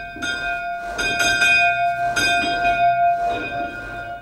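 Church bell rung by pulling its rope, struck several times at uneven intervals. One clear ringing tone carries on from stroke to stroke.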